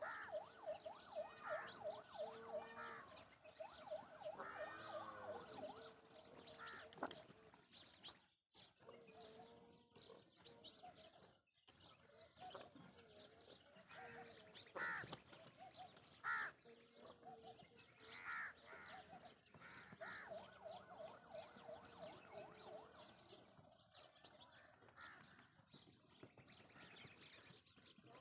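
Peafowl and other birds calling, several at once. A fast run of short repeated notes comes at the start and again about two-thirds of the way through, with louder short single calls in between.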